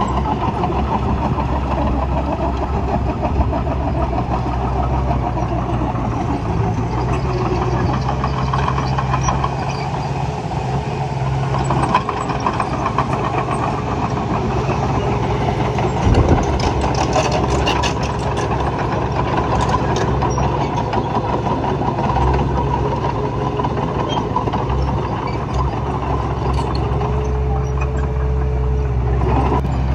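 Heavy earthmoving machinery engine running steadily, with a single sharp knock about sixteen seconds in.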